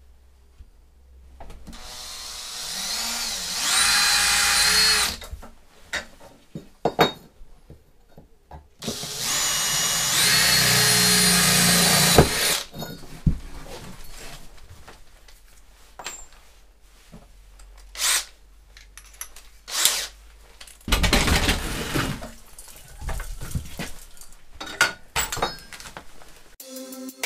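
Cordless drill run in two long bursts, its motor whine rising and then holding steady each time. After that come scattered sharp knocks and clatters.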